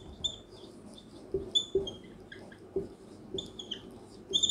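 Marker squeaking and tapping on a whiteboard during writing: short, scattered high squeaks with soft knocks from the strokes.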